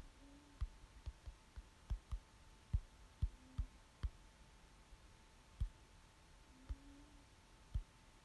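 Fingertips tapping a smartphone touchscreen while typing on its on-screen keyboard: faint, irregular soft thumps, one to three a second. A faint steady hum lies beneath.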